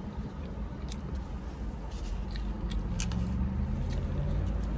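Close-up chewing of a burger: soft, wet mouth clicks and smacks, scattered and irregular, over a low, steady background rumble.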